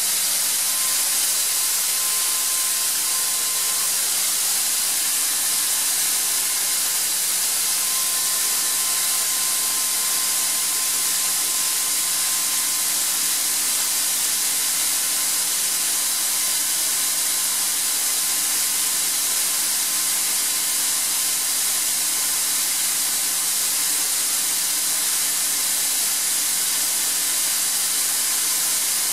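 Atlas Copco ZR90 VSD-FF oil-free rotary screw air compressor running steadily: an even hiss, strongest in the high end, with a faint steady whine underneath.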